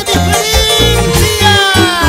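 Instrumental passage of an Andean folk song played by a band with electric guitar and harp over a steady bass beat. The melody slides downward about a second and a half in.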